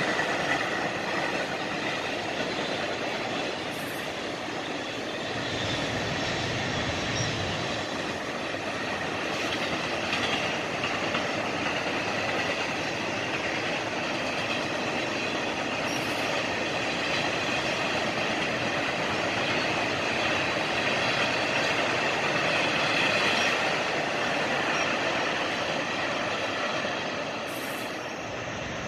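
Freight train cars rolling past: a steady rush and rumble of steel wheels on the rails, easing off slightly near the end.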